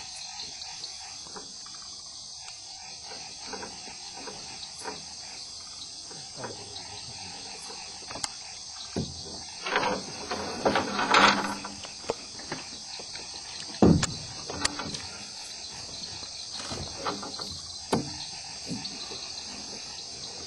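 Night chorus of crickets and other insects, a steady high chirring, with scattered knocks and bumps, the loudest a single thump about 14 seconds in.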